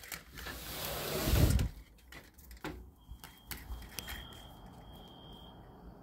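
A window being slid open: a scraping rush of the sash lasting over a second, followed by a few clicks and knocks of the frame. After that a faint thin high tone comes and goes from about halfway through.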